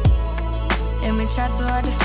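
Background music: a song with a steady deep bass line and a drum beat.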